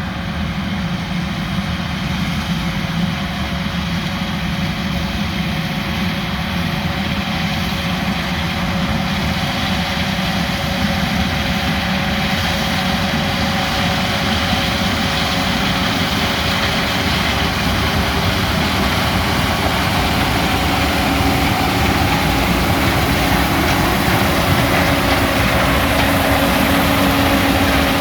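Large diesel harvest machinery, a combine or a tractor, running steadily with a constant engine drone. A further steady hum joins about three-quarters of the way through.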